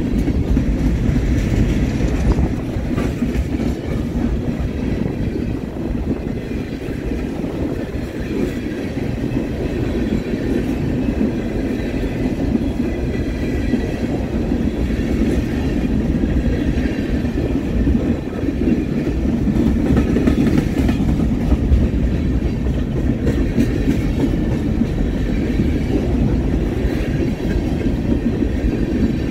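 Freight train rolling past, its cars making a steady, loud low rumble on the rails.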